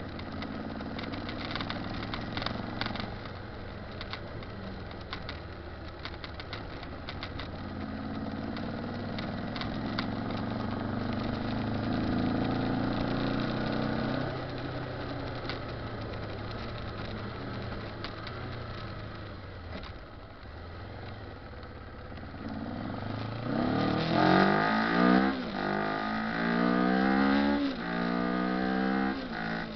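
Kawasaki Ninja ZZR250's parallel-twin engine under way, running steadily and then building revs. About three-quarters of the way in it is revved hard through several gears, its pitch climbing and dropping back at each shift.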